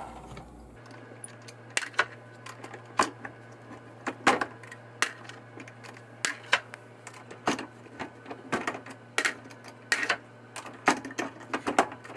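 Quick, irregular metal clicks and clacks, about one or two a second, from a Hornady Cam-Lock collet bullet puller in a single-stage reloading press being worked fast: cam lever flipped, press handle cycled up and down, pulled bullets released. A faint steady hum runs underneath from about a second in.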